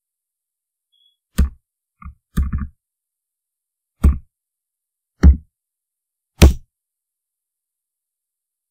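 Computer keyboard keystrokes and mouse clicks, about six sharp knocks with a strong low thud, one of them a quick double knock. Dead silence lies between them.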